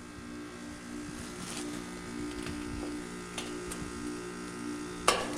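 Carrier Comfort 14 heat pump outdoor unit running in its defrost cycle, a steady low mechanical hum, with a sharp click about five seconds in.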